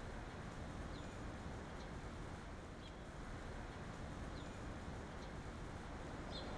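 Outdoor ambience: a steady low background rumble with short, high bird chirps about once a second.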